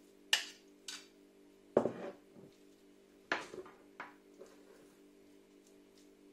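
Metal spoon knocking and scraping against a ceramic bowl as minced-meat filling is scooped out and spread: five short clinks in the first four seconds, the one about two seconds in the loudest and deepest. Soft, steady background music runs underneath.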